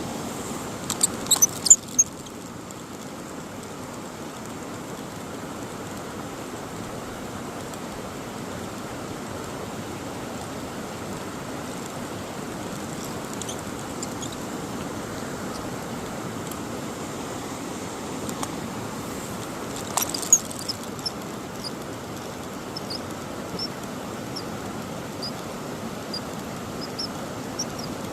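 Steady rush of a mountain stream's flowing water, with a few sharp clicks in the first two seconds and again about twenty seconds in, and faint short high chirps over the last several seconds.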